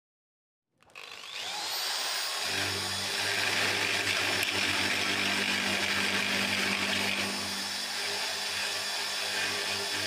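Corded electric drill starting up about a second in and running steadily, its bit working into the door frame at the strike-plate opening.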